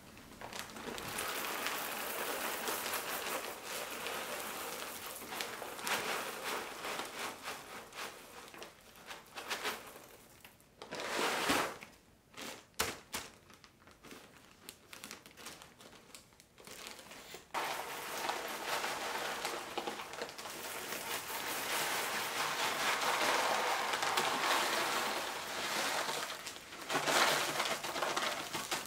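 Plastic bags of whole coffee beans crinkling and rustling as they are handled and opened, with a quick rattle of beans poured into a bag near the end.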